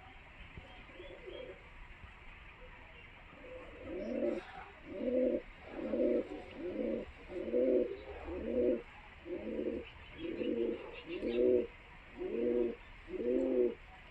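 Pigeons cooing: faint coos at first, then from about four seconds in a steady run of low, loud coos, roughly one a second.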